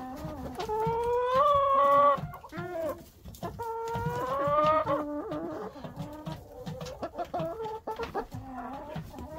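A rooster crowing twice, each a long drawn-out call of about a second and a half, followed by hens clucking.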